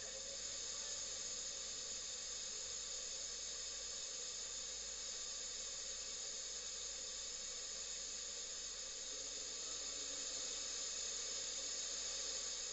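FM radio receiver giving a steady static hiss through its speaker, with no station tuned in.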